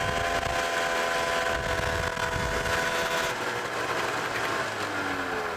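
Vehicle engine running steadily at a high, even pitch, then easing off about four seconds in with its pitch sliding down.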